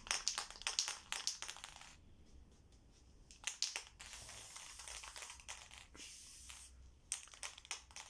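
Aerosol spray-paint can being shaken, its mixing ball rattling in a quick run of clicks for about two seconds, then a soft hiss of paint spraying for a few seconds, with a few more rattles near the end.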